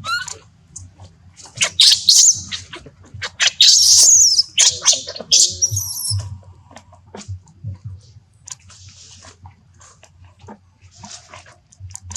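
Baby monkey crying in shrill, high-pitched screams, the loudest run of calls from about two to six seconds in, with scattered short clicks and rustles around them.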